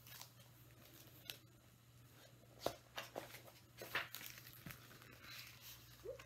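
Faint rustling and a few soft taps of paper as a picture book's pages are handled and turned, over a low steady room hum.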